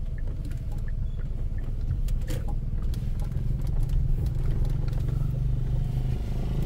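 Car engine running with road rumble, heard from inside the cabin, with a few light clicks and rattles. The engine note steadies and grows a little louder about halfway through.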